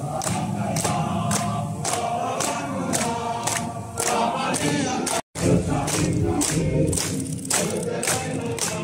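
A large group of soldiers singing together while clapping in time, about three claps a second. The sound cuts out for a moment just past halfway.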